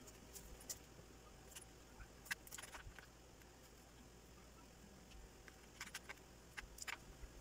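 Faint, sparse clicks and scrapes of a kitchen knife trimming and slitting raw whole shrimp on a board, coming in two short clusters, about two seconds in and again near the end.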